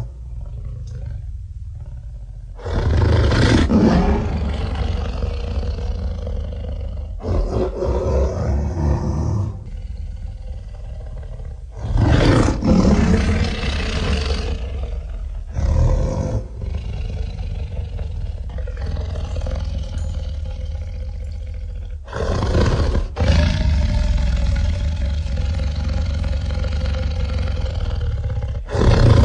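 Synthesized Carcharodontosaurus roars built from layered stock gorilla roars and elephant roars: a series of about six long, deep roars over a continuous low rumble.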